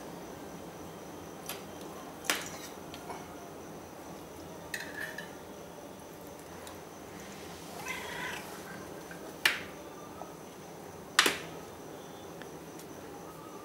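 Bengal kitten meowing for food, short cries about five seconds in and again around eight seconds. Three sharp metallic clicks, loudest near the end, from a spoon against a small tin can of wet cat food.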